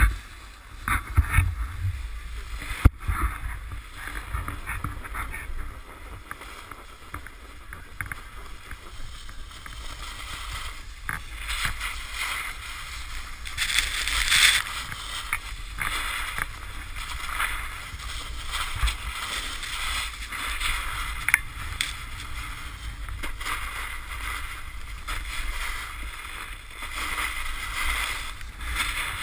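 Snowboard sliding and carving on groomed snow, its edges scraping, with wind rumbling on the camera's microphone. A few sharp knocks come in the first few seconds, and the scraping is loudest about halfway through.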